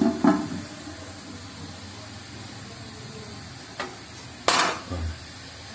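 Metal cooking-pot lids being handled: a ringing clank just after the start, a light tap a little before four seconds, then a louder clatter followed by a dull thump near the end.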